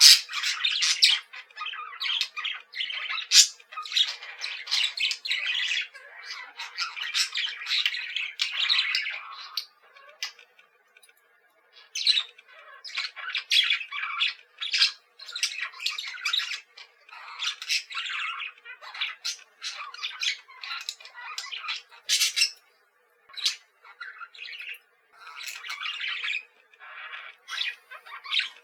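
A flock of parakeets chattering, with many short, overlapping squawks and chirps and a brief lull about ten seconds in.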